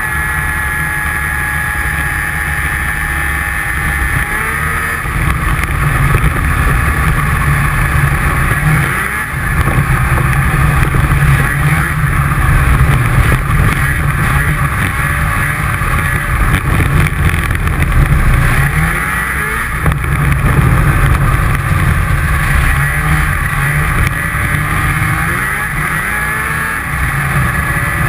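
Snowmobile engine running at speed. The engine note dips and climbs again several times as the throttle is eased and reopened, and it grows louder about five seconds in.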